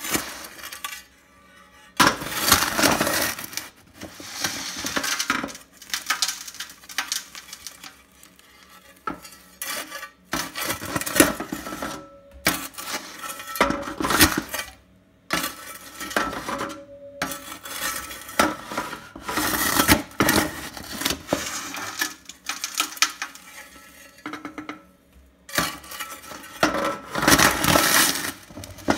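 Steel ash shovel scraping and clanking against the steel walls of a coal boiler's firebox as ash is scooped out, in repeated strokes of a second or two with short pauses between.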